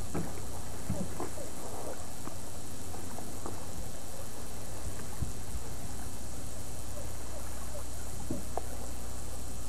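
Steady low hum and hiss of an old camcorder recording, with a few faint short sounds scattered through.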